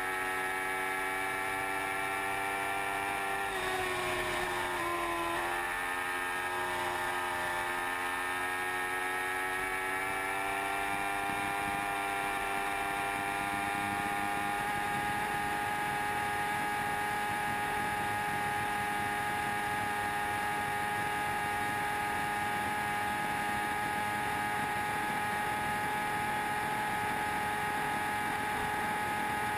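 Sport motorcycle engine running at high revs at around 300 km/h, a steady high-pitched drone with wind rush over it. The pitch dips briefly about four seconds in, then holds steady.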